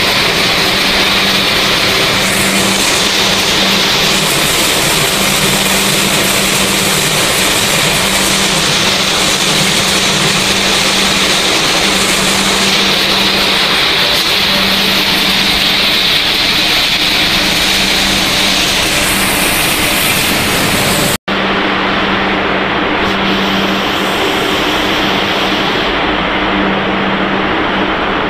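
Snack food production-line machinery running: a loud, even mechanical noise with a steady hum, broken by a brief dropout about two-thirds of the way through.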